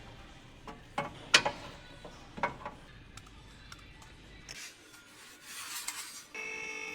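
A few sharp clicks and knocks of metal tools or parts being handled, then a short rasping rub, with a steady electronic-sounding tone starting near the end.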